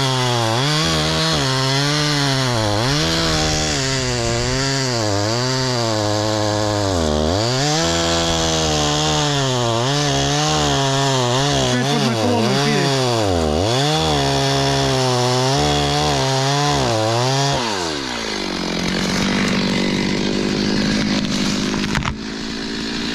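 Two-stroke chainsaw cutting into a tree, its engine note dipping and recovering again and again as the chain bites under load. About 18 seconds in the revs fall away and it settles to a lower, steady note.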